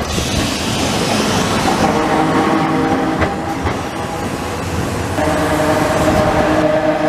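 Vintage tramcar running on street rails: a continuous rumble of wheels on track with a steady whine over it, and a single click about three seconds in. About five seconds in the sound steps up louder as another vintage tram approaches.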